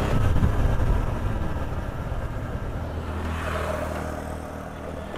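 TVS Apache RTR 160 motorcycle's single-cylinder engine running under way, with wind rumbling on the microphone. About three seconds in the wind drops away, leaving the engine running steady and low at slow speed, fading near the end.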